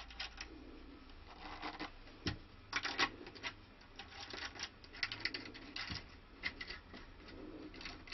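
Small spanner clicking and scraping on the hex retaining nuts of the tuning machines as they are tightened onto the headstock: a string of faint, irregular light clicks, some in quick clusters.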